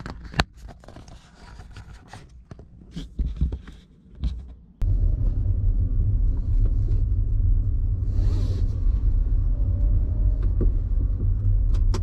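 Low, steady road rumble of a car being driven, as heard from the moving car. It starts suddenly about five seconds in, after a few seconds of faint clicks and knocks.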